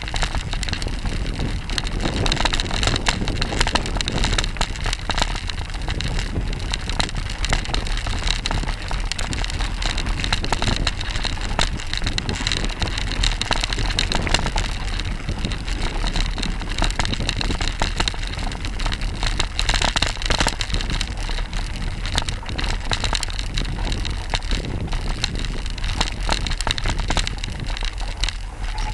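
Mountain bike riding a dirt singletrack: a steady rush of wind and tyre noise with a constant stream of small clicks and rattles from the bike.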